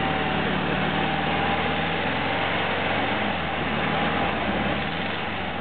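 Volkswagen Kübelwagen's air-cooled flat-four engine idling steadily, heard from just behind the rear-mounted engine.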